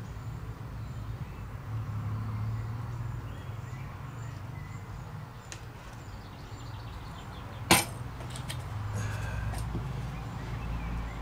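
Quiet handling of a plastic glue bottle over a wooden model wing: a low steady hum with faint small ticks, and one sharp click a little over two-thirds of the way through.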